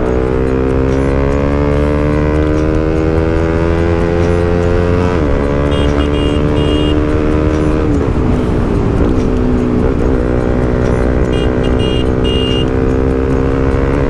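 Bajaj Pulsar NS200 single-cylinder motorcycle running through a loud exhaust with no dB killer, under way. The engine note climbs steadily, drops sharply about five seconds in at a gear change, dips a few more times around eight to ten seconds, then climbs again.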